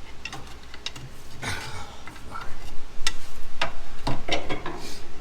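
Irregular metallic clicks and knocks of hand tools working on a skid steer's hydraulic hose fittings, getting louder and more frequent about halfway through.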